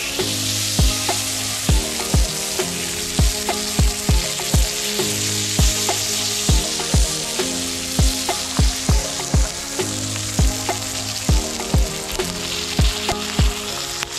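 Tomahawk steak sizzling steadily as it sears on its edge on a hot ribbed griddle pan. Background music with a thumping beat plays over it.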